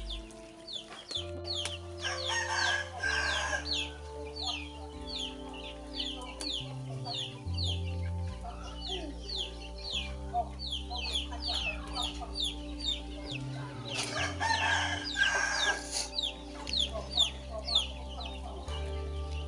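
Chicks peeping in a fast, continuous run of short, high, falling chirps, several a second. A rooster crows twice, about two seconds in and again around fourteen seconds. Background music with a stepping bass line plays under it all.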